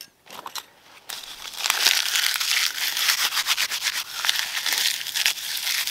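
Dry birch bark being broken apart and rubbed between the hands into fine tinder: a dense crackling rustle that starts about a second in and keeps going.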